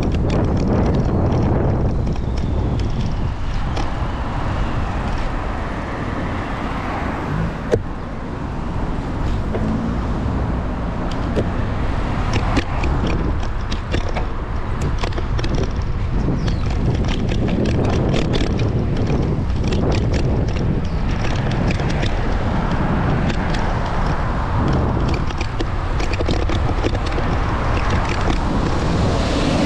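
Wind rumbling on the microphone of a moving bicycle, mixed with road traffic noise. Scattered light clicks come in the middle stretch, and one sharp click about eight seconds in.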